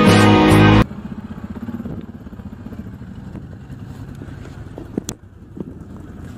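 Background music that cuts off abruptly under a second in, followed by the low, steady running of a quad bike (ATV) engine idling close by, with a sharp click about five seconds in.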